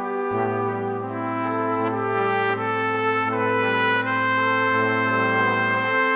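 Background music of slow, long held chords in a brass-like timbre, with a low note held under them that drops away near the end.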